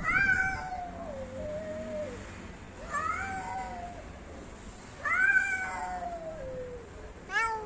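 Cats yowling in a face-off, a territorial threat before a fight: four long, drawn-out wails, each sliding slowly down in pitch, about two seconds apart.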